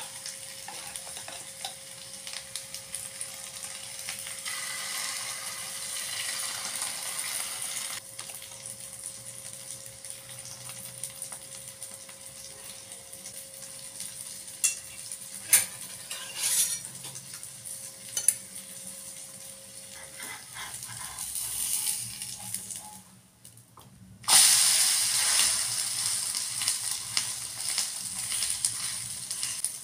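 Bread slice and egg batter sizzling in hot oil in a non-stick frying pan, with a few sharp clicks in the middle. The sizzle breaks off briefly about six seconds before the end, then comes back louder while a steel spatula works under the bread.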